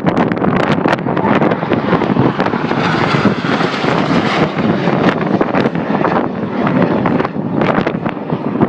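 Aircraft flying past, its rushing engine noise swelling to a peak about halfway through and then fading, with wind buffeting the microphone.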